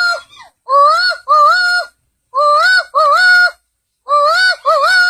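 A man's voice imitating the call of the yacabó (laughing falcon): repeated rising two-note calls in pairs, about three pairs, with short gaps between. This is the bird's other call, the one said to be 'calling death'.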